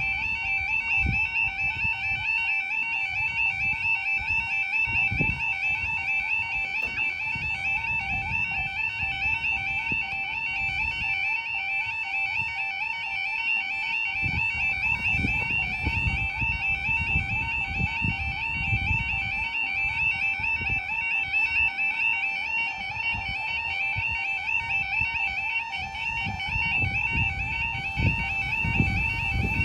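UK level crossing audible warning alarm sounding continuously as a rapid, warbling two-tone yelp, signalling that a train is approaching and the barriers are down.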